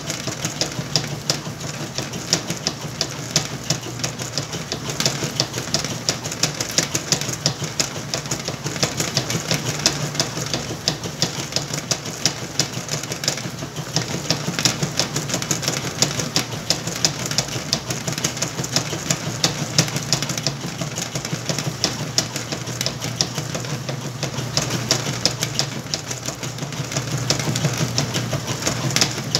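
Whirlpool washing machine running with a load of towels: a steady motor hum with frequent ticks and knocks.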